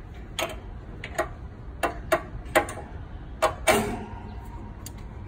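Light metallic clicks and clinks, about seven and unevenly spaced, as a bullwhip throttle cable is worked free of its mounting bracket. The loudest comes near the end and rings on briefly.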